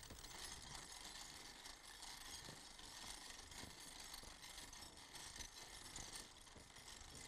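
Faint clinking rattle of a horse-drawn harrow dragged slowly over a field.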